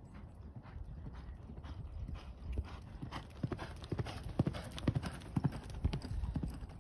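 A quarter horse's hoofbeats on a soft dirt arena at a lope, the thuds growing louder from about halfway in as the horse comes nearer.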